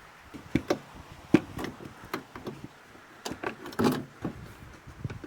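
Air filter box being worked loose and lifted out of a Toyota Hilux engine bay: a string of irregular clicks and knocks, busiest a little past three seconds in.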